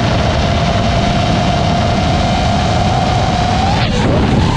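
FPV quadcopter's 2408 1622 kV brushless motors spinning six-inch three-blade props, a steady high whine over heavy wind rush, picked up by the onboard microphone. About four seconds in the whine drops sharply and swings back up as the throttle is chopped and reapplied.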